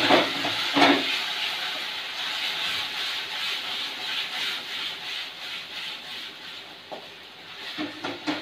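Onion and chili-ketchup sauce sizzling in a hot kadai over a high gas flame while it is stirred with a spatula. The sizzle is loudest in the first second, with spatula knocks against the pan, then eases; a few more spatula knocks come near the end.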